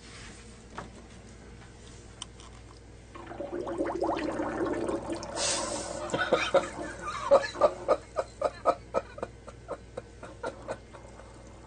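A person laughing: a drawn-out voiced sound, then a run of short laughs, about three a second, that fade toward the end.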